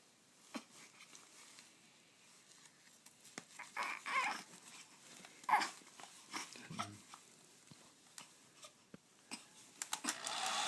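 A baby's short, scattered whimpers and fussing cries, spaced apart with quiet between them. A hair dryer switches on near the end and runs with a steady, loud rush.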